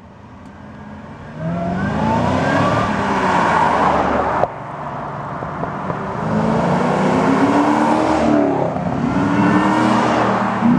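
Fifth-generation Chevrolet Camaro engine accelerating, its pitch climbing and then dropping sharply about four seconds in, then climbing again twice.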